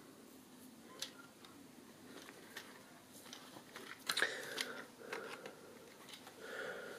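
Light clicks and knocks of a small plastic RC crawler being handled and turned over in the hand, with a louder cluster of clatters about four seconds in.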